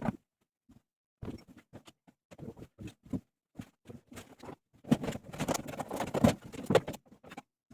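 Hand work on a washing machine during a bearing replacement: irregular clicks, taps and scraping of tools and parts. The sounds start sparse and grow busier and louder about five seconds in, then thin out near the end.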